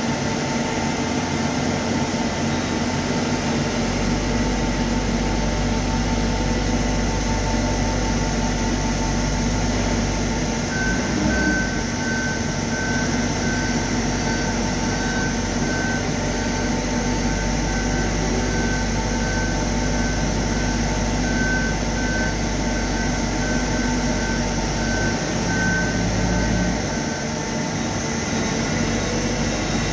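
Okuma MC-5VA vertical machining centre running: a steady mechanical hum whose low drone shifts a few times, with a high pulsing tone, about two pulses a second, from about a third of the way in until near the end.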